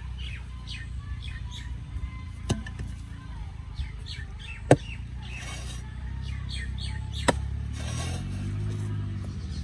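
A digging hoe striking hard, dry soil three times, roughly every two and a half seconds, the middle blow the loudest, with birds chirping throughout.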